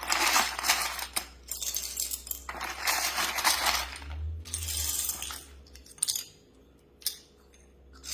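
Loose plastic keycaps clattering and clicking against each other as they are handled, in two long rattling spells, then a short one and a couple of single clicks.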